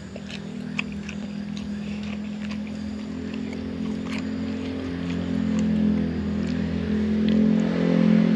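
A motor engine drones steadily, growing louder toward the end. Over it come small close-up clicks and smacks of eating by hand.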